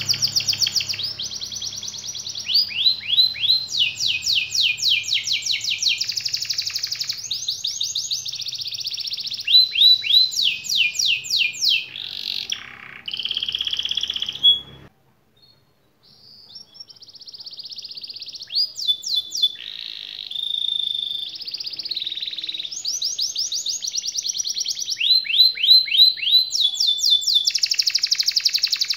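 Domestic canary singing a long rolling song: fast trills of repeated, quickly falling notes that change to a new phrase every second or two. The song breaks off briefly about halfway through, then resumes.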